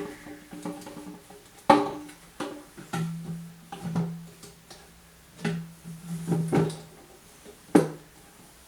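Hard plastic knocks and clunks as a water softener control valve is set onto the resin tank's neck over the distributor tube, about seven in all. Each knock is followed by a short, hollow ringing hum.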